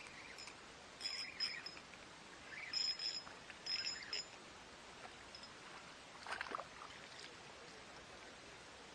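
A hooked barracuda splashing and thrashing at the surface on a topwater lure, in several short bursts, with a fuller splash about six seconds in.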